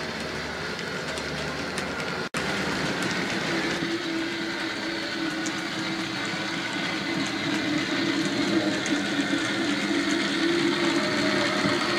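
OO gauge model trains running on the layout's track: the steady whir of the locomotive motors with faint clicking of wheels over the rail joints. A brief break comes a couple of seconds in, after which a steady hum sets in and the sound grows louder towards the end as a tank engine approaches.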